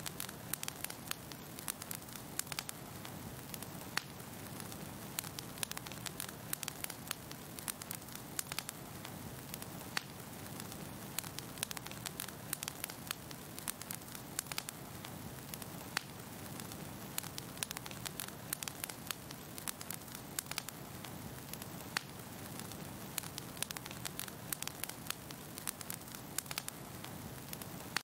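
Fire crackling in a fireplace: frequent irregular sharp pops and snaps over a steady low rushing hiss of the flames.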